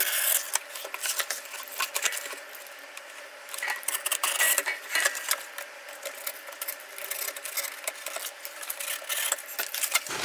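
A utility knife cutting through a corrugated cardboard box, with dense scratchy scraping and crackling clicks as the cardboard is sliced and handled.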